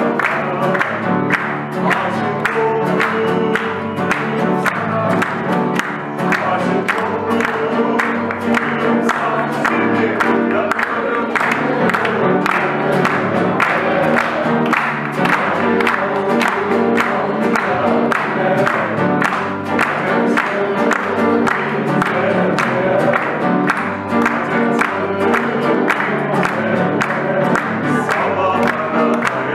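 Live song with upright piano and acoustic guitar accompanying singing voices, and the audience clapping along in time, about two claps a second.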